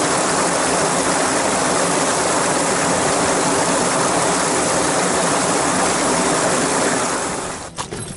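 Creek water rushing over small cascades, a loud steady rush that cuts off near the end.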